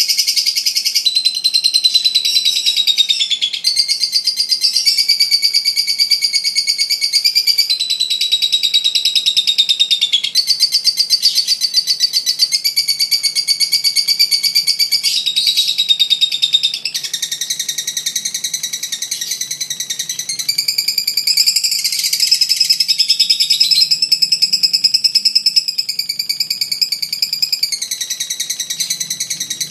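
Masked lovebird (blue mutation) giving a long, unbroken ngekek: a rapid, high chattering trill that runs on without pause, stepping to a new pitch every few seconds.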